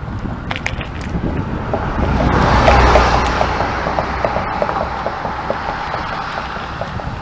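A vehicle passing close by, its noise swelling to a peak about three seconds in and fading slowly, with a rapid, even ticking through the middle.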